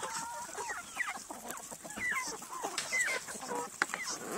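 A flock of chickens clucking: many short calls overlapping one another without a break.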